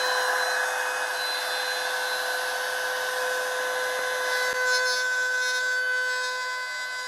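Compact trim router running at full speed, a steady high whine with several held tones as it trims the edge of a plywood panel.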